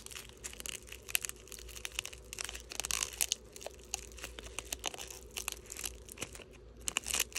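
Plastic bubble wrap crinkling as fingers pick at and peel clear tape off it, in many small irregular crackles.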